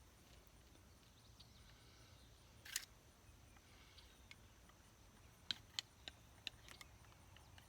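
Near silence with faint outdoor background noise, broken by a brief rustle about three seconds in and a few short faint clicks near the end.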